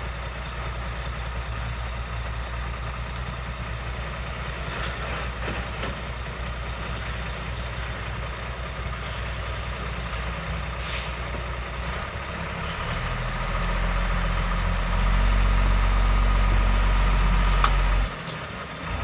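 Dump truck's engine running while compost slides out of the raised bed through the tailgate. About twelve seconds in the engine speeds up and runs louder for several seconds, then drops back suddenly near the end. A short hiss sounds midway.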